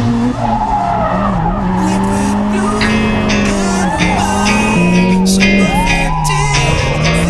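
Hyundai Genesis Coupe drift car heard from inside the cabin while drifting: the engine is held at fairly steady revs with brief dips, and the tyres squeal and skid, under background music.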